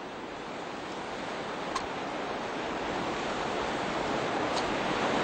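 Rushing river water over rapids, a steady hiss that grows slowly louder.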